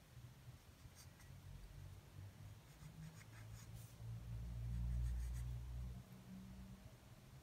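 Mechanical pencil scratching faintly on drawing paper in short strokes. A low rumble swells through the middle.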